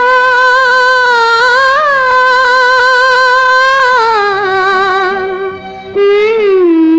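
A wordless vocal line in a Hindi film song, long held notes with vibrato, with a short upward flourish twice. It falls to a lower held note partway through.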